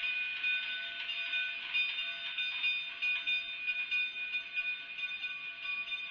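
A narrow-gauge steam train's coaches rolling slowly past with a steady high squeal of steel wheels on rail: several held tones over a faint rumbling hiss.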